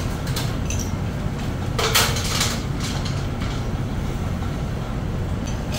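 Steady low hum of running machinery, with scattered metallic clinks and a brief louder rattle about two seconds in from a chain hoist's chain being handled overhead.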